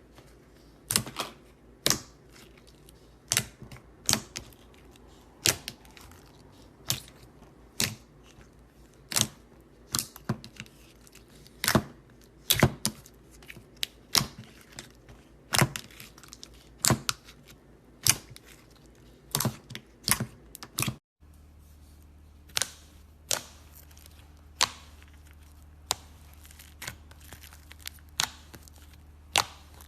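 Slime being pressed and pulled, giving sharp popping clicks as air pockets burst, roughly once a second and sometimes in quick pairs.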